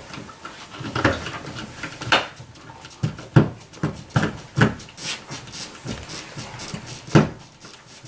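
Irregular clicks and short knocks of a screwdriver working the mounting screws of a blue plastic cut-in (old-work) electrical box set in drywall, turning the screws that swing its clamping flaps down against the back of the drywall.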